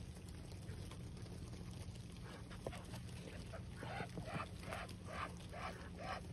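Muscovy ducks feeding, giving a run of short, evenly repeated calls, about two to three a second, that begin about two seconds in and grow louder over the second half.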